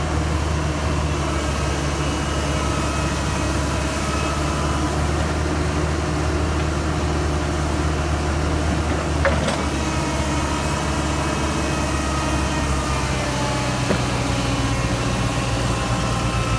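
Hydraulic excavator diesel engines running steadily while the machines work their booms and buckets in mud, with a faint hydraulic whine over the engine note. The engine note shifts slightly about halfway through, and there are two brief light knocks, one about nine seconds in and one near fourteen seconds.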